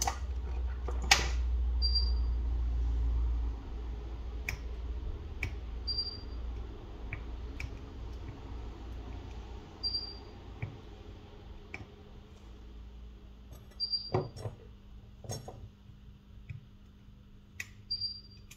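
Small, scattered clicks and taps of repair tools on an iPhone 11 being opened for a screen replacement. A short high beep repeats about every four seconds. A low hum runs for the first few seconds and then stops.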